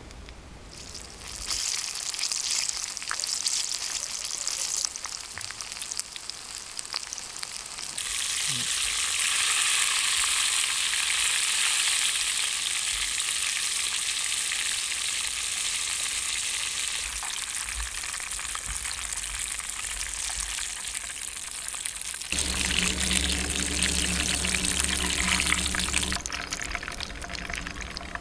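Bacon-wrapped chili peppers deep-frying in a pan of hot oil: a steady crackling sizzle that starts a second or so in and grows louder about eight seconds in. A low steady hum joins for a few seconds near the end.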